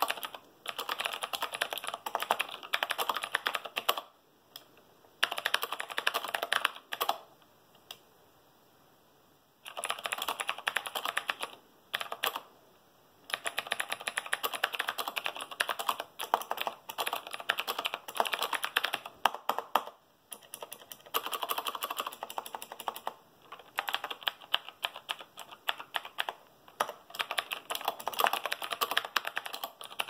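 Typing on a 1988 Cherry G80-1000 keyboard fitted with clicky, tactile Cherry MX Blue switches: fast runs of keystroke clicks, broken by a few pauses of a second or two.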